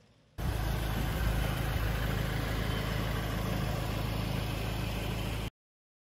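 Large engine running steadily under load, with a loud even rushing noise over it. It starts abruptly about half a second in and cuts off abruptly near the end.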